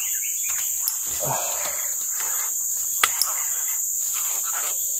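Insects buzzing steadily at a high pitch, with a few sharp clicks.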